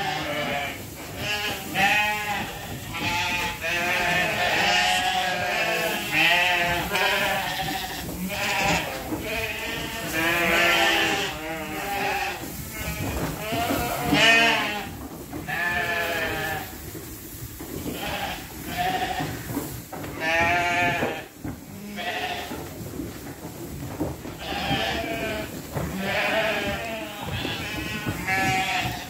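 A flock of ewes bleating loudly, many wavering calls overlapping one after another, as they get excited for their grain corn feed.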